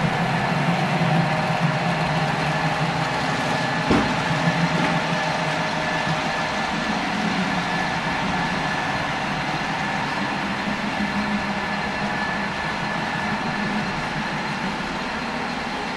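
Model freight train running on a layout: a steady mechanical drone with one sharp click about four seconds in.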